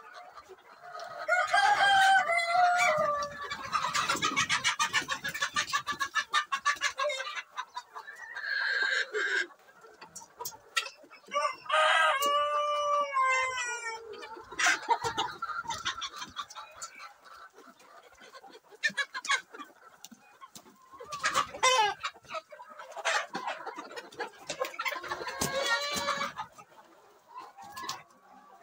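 A flock of chickens clucking and squawking as roosters are caught by hand, with a rooster crowing about twelve seconds in.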